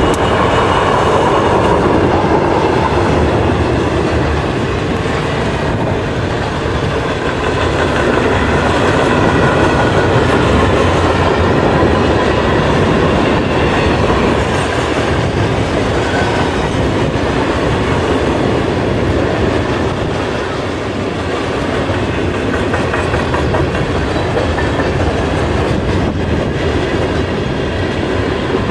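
Freight train cars rolling past, a loud, steady rumble of steel wheels on the rails.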